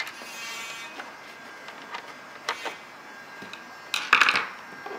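Plastic parts of a radio-controlled tank's hull and turret ring being handled: a brief scrape at the start, a single click midway, and a louder short rattle about four seconds in.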